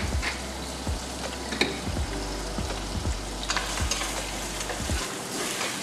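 Peeled prawns and garlic sizzling in olive oil in a pan, with a wooden spoon stirring and knocking against the pan. A pepper mill grinds over the pan at first.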